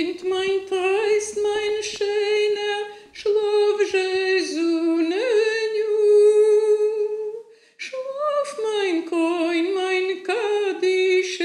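A woman singing a Yiddish lullaby unaccompanied, in slow, long held notes that bend gently in pitch, with a short breath pause about eight seconds in.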